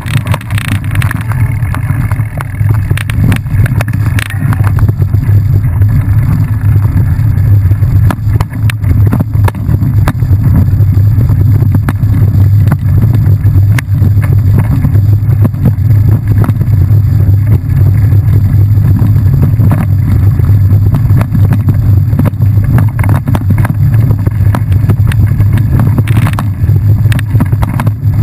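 Steady, loud low rumble of a bike being ridden fast along a bumpy woodland dirt trail, with frequent short knocks and rattles as it goes over the ground.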